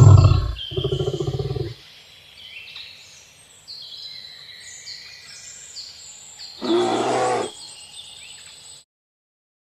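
A large wild animal roars, then gives a short pulsing growl, and roars again more briefly about seven seconds in, over a background of high bird chirps. The sound cuts off suddenly near the end.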